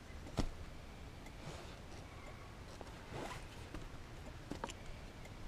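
Small RV fresh-water pump and its plastic fittings handled and turned by hand: a sharp click about half a second in, then three short rasping scrapes spread over the next few seconds.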